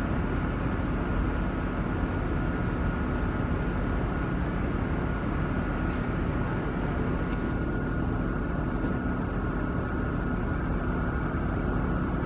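A steady low mechanical drone with a constant hum on top, unchanging throughout.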